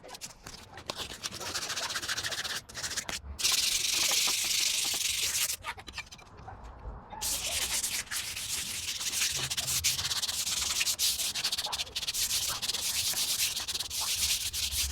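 Hand sanding: rapid back-and-forth rubbing strokes of abrasive on a hard surface. Scattered strokes come first, then a steady run of sanding from about three and a half seconds in, a short pause, and a longer run from about seven seconds in.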